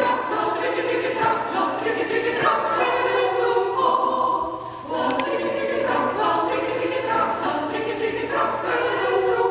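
Choir singing sustained chords, with a short break between phrases about four and a half seconds in.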